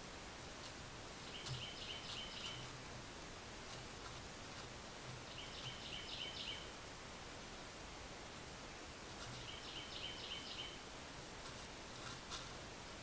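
A bird calling three times, each call a quick run of about five short high notes, over a steady faint hiss of woodland background.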